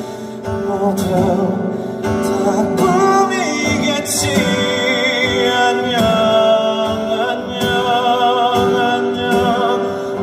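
Male voice singing a slow song live, with vibrato on long held notes, over guitar accompaniment.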